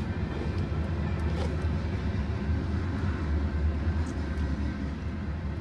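Steady low vehicle rumble heard from inside a car, with no sudden events.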